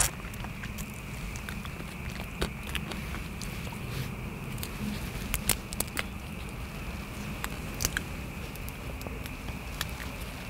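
Salt-grilled king prawns being peeled by hand, the shells cracking in scattered sharp clicks and crackles, with some chewing, over steady background noise.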